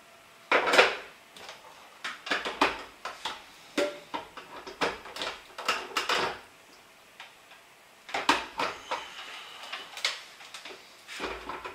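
Plastic parts of an old Krups food processor clicking, knocking and clattering in irregular clusters as they are pulled apart and fitted back on.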